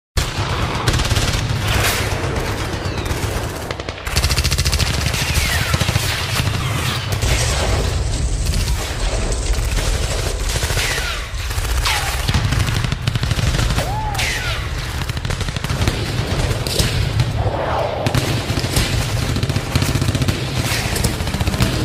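Battle sounds: sustained rapid gunfire mixed with explosions, with a deep rumble underneath. Several falling whistles, like incoming shells, cut through at intervals.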